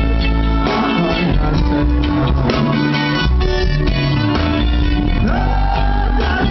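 Live reggae band playing loudly through a PA: electric guitars, bass, keyboard and drum kit keeping a steady beat, with the lead singer's voice over it.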